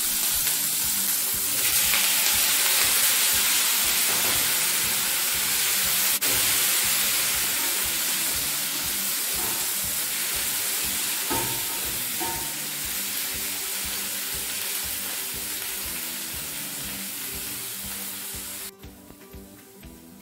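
Tomato pieces, dried red chillies, curry leaves and urad dal sizzling in hot oil in a stainless steel pan, stirred with a wooden spatula. The sizzle gets louder about two seconds in, slowly fades, and drops away suddenly near the end.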